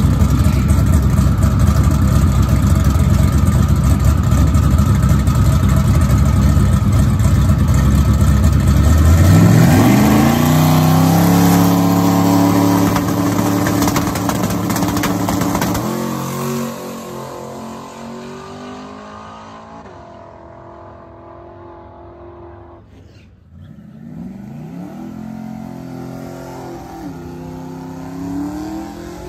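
Turbocharged LS V8 in a Chevy Colorado drag truck running loud at high revs, then revving up in rising pulls about nine seconds in. After about sixteen seconds it is quieter, revving up and down in shorter sweeps.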